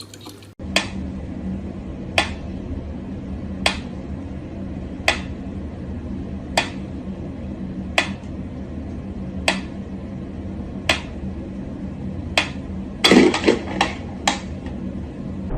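Sharp clinks or taps, one about every second and a half, over a steady low hum, then a quick flurry of clinks near the end.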